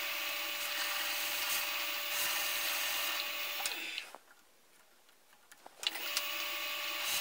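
Small metal lathe running steadily as a cutting tool turns a groove in a knurled metal ring. The sound stops abruptly about four seconds in and comes back a second and a half later.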